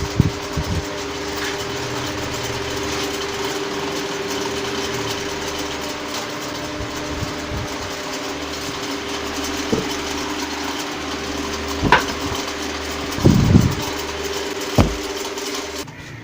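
Pedestal fan running with a steady hum and an abnormal noise, with a few sharp knocks in the second half before it cuts off suddenly near the end. The noise comes from the loose cap on the fan's blades, not from a worn bearing or a damaged shaft.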